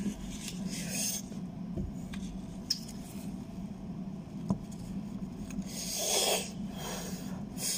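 Mouth and breath noises of a person eating a hot chili pepper, over a steady low hum. There are breathy rushes about a second in and again near the end, and a few small clicks.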